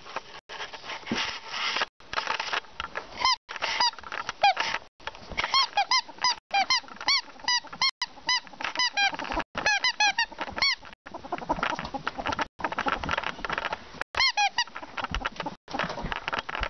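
Ferret dooking: quick runs of short, squeaky clucking chirps, the sound ferrets make when excited and playing, over rustling and scuffling.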